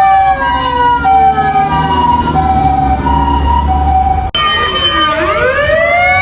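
An emergency vehicle's mechanical motor siren winding down in pitch while a two-tone electronic siren alternates between two notes, over a low engine rumble. About four seconds in it cuts sharply to another vehicle, where a motor siren winds up again, rising in pitch.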